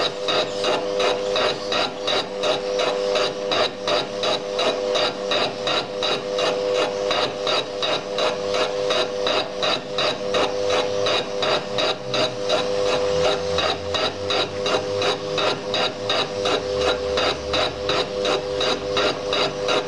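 Lathe running a fly cutter across the end face of a rough cylinder casting: the single cutting tool strikes the metal once per revolution, about three hits a second, over the steady hum of the lathe.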